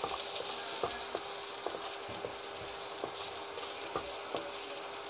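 Minced garlic sizzling in hot oil in a wok, a steady hiss with scattered small pops, over a faint steady hum.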